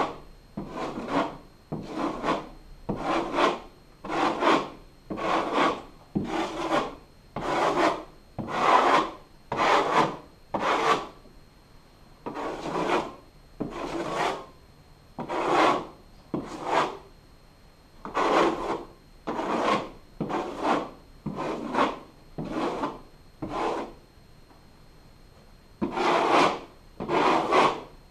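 Metal drywall knife scraping across a drywall wall in repeated strokes, roughly one to two a second, pausing briefly twice.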